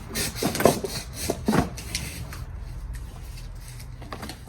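Plastic body parts of a 6V battery-powered ride-on toy car being handled and pushed into place: rubbing and scraping with a few light knocks in the first couple of seconds, then quieter handling.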